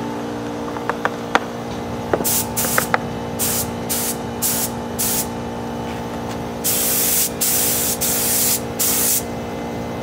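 Compressed-air spray gun spraying paint in about ten hissing bursts as the trigger is pulled and let go, short at first and longer later on, over a steady hum. A few sharp clicks come in the first few seconds.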